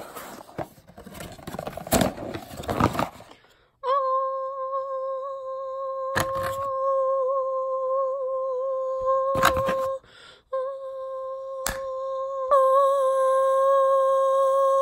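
Rustling and crinkling as a cardboard shipping box is handled and opened. Then a voice hums one long, steady high note, broken by a short pause about ten seconds in, with a few sharp clicks over it.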